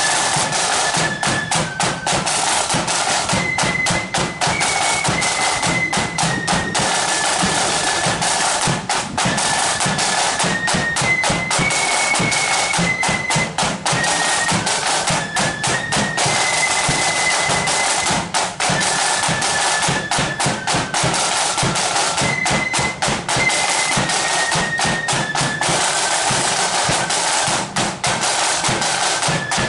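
Marching flute band playing a tune: a high flute melody moving in steps over rapid, steady drumming.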